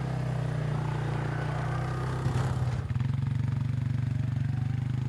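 Four-wheeler (ATV) engine running steadily with an even beat, a brief clatter a little over two seconds in.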